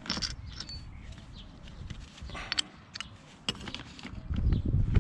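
Hand tools and parts being handled during engine-bay work: scattered sharp clicks, taps and clinks. A low rumble comes up near the end.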